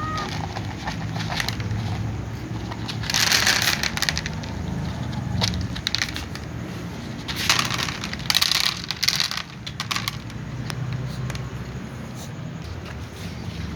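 Cats crunching dry kibble, a run of small crisp crunches with two louder, noisier spells about three seconds in and again around eight seconds.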